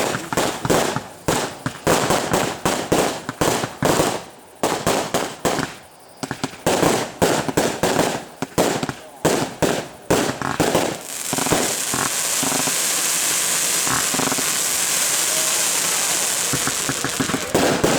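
Fireworks display: a rapid, uneven run of shell bursts and bangs. About eleven seconds in, the bangs give way to a steady high hiss lasting several seconds, and the bangs start again near the end.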